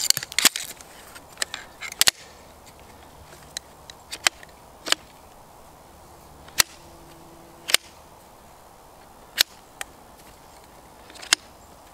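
Aluminium poles of a lightweight folding camp chair frame snapping into their sockets and hubs as it is assembled: about a dozen sharp clicks at irregular intervals.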